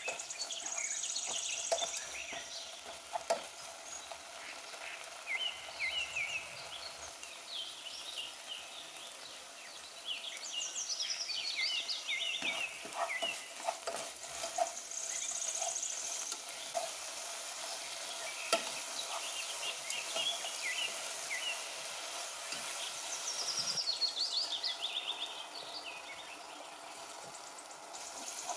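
Spatula stirring and scraping grated coconut cooking in condensed milk in a nonstick pan, with a soft sizzle and a few sharp knocks of the spatula against the pan. High chirping repeats in the background.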